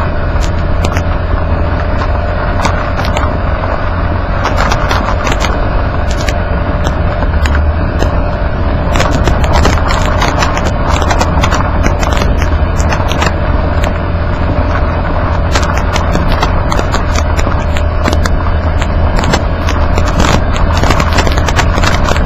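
Road noise from beneath a Nissan Kix driving on an unpaved road: a loud, steady low rumble of the tyres and wind under the car, with a steady hum and frequent sharp clicks of grit and small stones striking the underbody.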